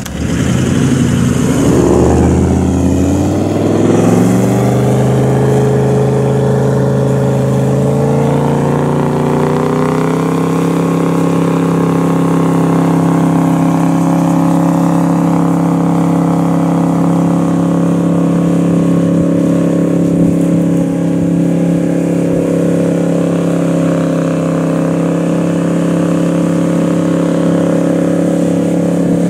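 Toyota Land Cruiser engine revving hard under load while driving through deep sand. The revs climb over the first ten seconds or so, then hold high and steady.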